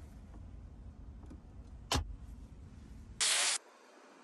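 Muffled rumble of a phone camera being handled, with a sharp click about two seconds in. A short, loud burst of hiss follows near the end, after which the rumble stops.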